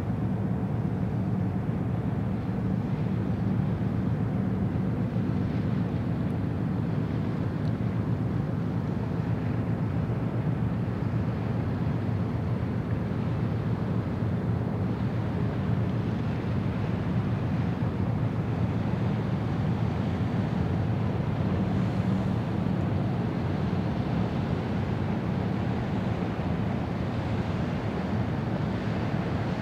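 Steady low rumble of outdoor waterfront ambience, with wind buffeting the microphone.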